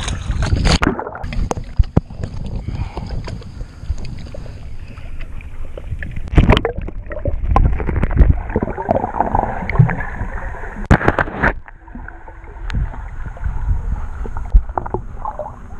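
Water sloshing and rumbling around an action camera worn by a swimming diver, muffled once the camera goes under the surface about a second in. Scattered clicks, with two loud sharp sounds about six and eleven seconds in.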